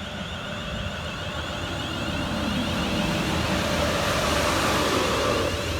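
Two coupled Class 350 Desiro electric multiple units approaching on the rails, with wheel and motor noise growing louder and peaking near the end.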